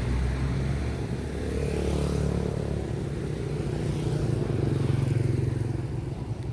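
Street traffic: motor vehicle engines passing, loudest about five seconds in.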